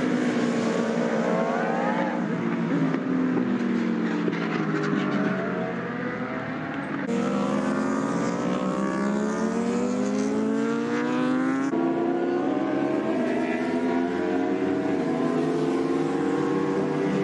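Racing superbike engines revving. Their pitch climbs and drops through gear changes, and the sound jumps abruptly about seven and twelve seconds in, where one engine gives way to another.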